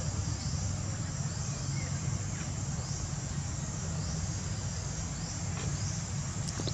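A steady, high-pitched insect chorus, with a faint pulse repeating about once a second, over a constant low rumble.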